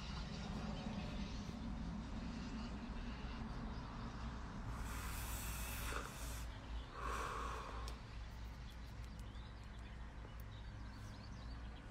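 A person taking a drag on a cigarette and blowing out the smoke: two breathy rushes a little before and after the middle, over a faint steady background hum.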